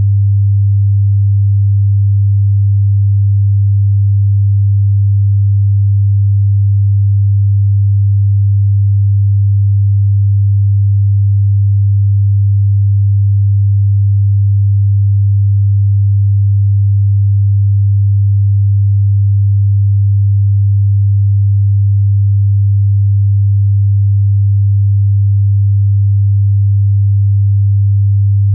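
A steady, low, pure sine tone at about 100 Hz, held unchanged throughout. It is a sound-therapy 'healing frequency' offered against motion sickness.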